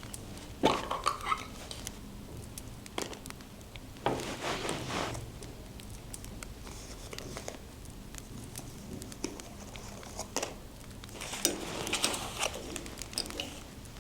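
Paper and craft materials being handled for scrapbooking: irregular bouts of rustling and crinkling with light taps and clicks. The loudest bout comes about a second in, with others around four to five seconds in and near the end.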